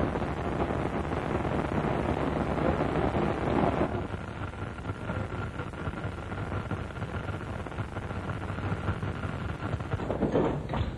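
Large building fire burning with a steady rushing roar.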